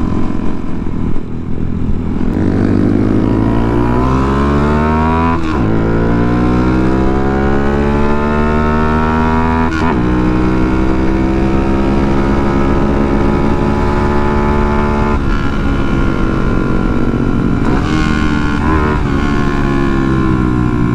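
Honda Monkey's single-cylinder four-stroke engine accelerating through the gears. The pitch climbs and drops sharply at upshifts about five and a half and ten seconds in, then rises slowly and holds at a steady cruise.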